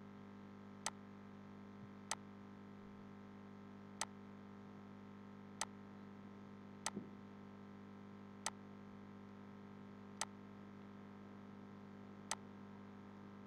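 Computer mouse button clicks: single sharp clicks every one to two seconds, eight in all, over a faint steady electrical hum.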